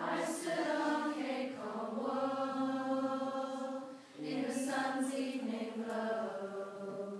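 A women's choir singing, with long held notes; the voices break off briefly about four seconds in and come back in on the next phrase.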